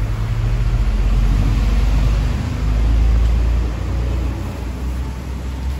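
A motor vehicle's engine running close by, a steady low rumble that swells about three seconds in.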